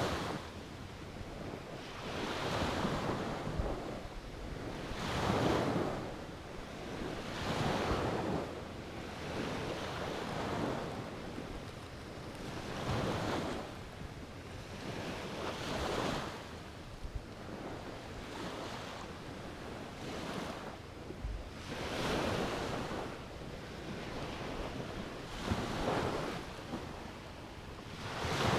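Small waves breaking on a beach, a wash that swells and fades about every two to three seconds, with wind on the microphone.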